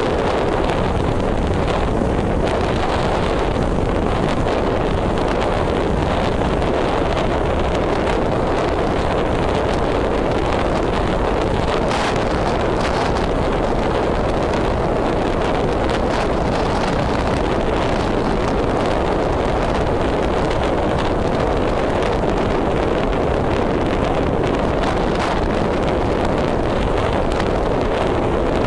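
Steady wind noise buffeting the microphone over the road noise of a car being driven.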